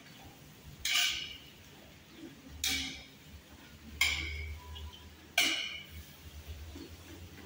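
Metal spatula scraping and clanking against a wok while stir-frying shredded cabbage: four strokes, about one every second and a half, each with a short ring.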